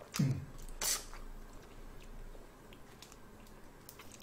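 Quiet eating sounds of a person peeling and chewing a cooked red shrimp close to the microphone. There is a brief low falling hum near the start, a short rustle about a second in, then faint soft clicks and squishes.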